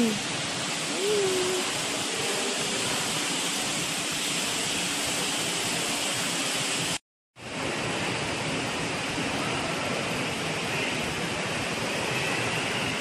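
Steady rushing of water from an artificial rock waterfall in an aquarium exhibit, cutting out briefly about seven seconds in.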